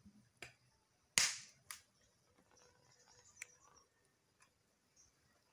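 Small open wood fire crackling: a few sharp irregular pops, the loudest a little over a second in.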